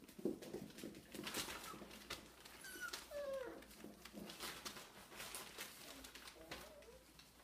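Puppies whimpering: one falling whine about three seconds in and a short squeak near the end, among scattered clicks and scuffles.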